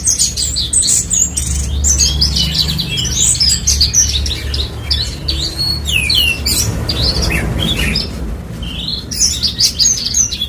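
Javan bush lark (branjangan, race parva) singing a long, fast, varied run of high chirps and trills, pausing briefly near the end before going on, over a steady low hum.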